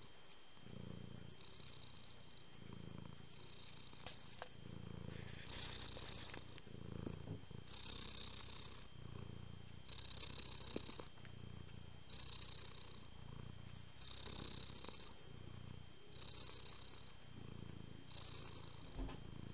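Cat purring, continuous and rhythmic, the sound swelling and changing about every two seconds between a low rumble and a brighter, hissier phase, with a few small clicks.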